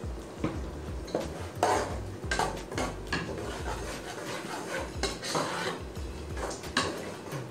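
Long-handled metal spoon stirring a thick tomato sauce in a metal cooking pot, scraping and clinking against the pot's sides and bottom in irregular strokes.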